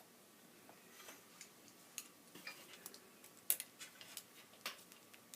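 Quiet, irregular light clicks and taps of small plastic-and-metal handling: a battery tester's selector being switched to the D-cell setting and a D battery being set against the contacts.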